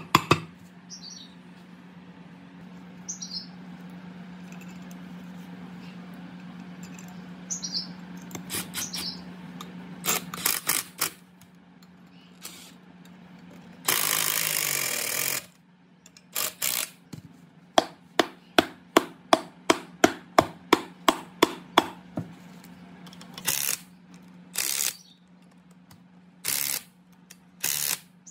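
Cordless impact driver running for about a second and a half midway, loosening an end-cover bolt on an old electric motor. Around it are sharp knocks on the motor's metal housing, including a quick even run of about a dozen taps a few seconds after the driver stops.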